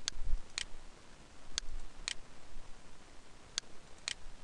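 Computer mouse clicking: six sharp clicks falling in three pairs about half a second apart, with a dull low thump just after the first click, over faint room hiss.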